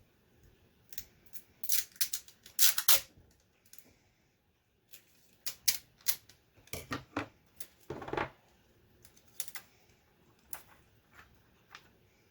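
Irregular clicks and taps of small plastic keyboard parts being handled and fitted during reassembly of a Commodore 64 keyboard, with louder clusters of clatter about two seconds in and again around the middle.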